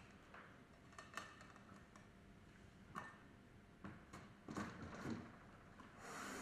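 Faint, scattered clicks and light scraping of metal tools and pump parts being handled while a centrifugal pump is taken apart, with a few single ticks and a short rubbing sound in the second half.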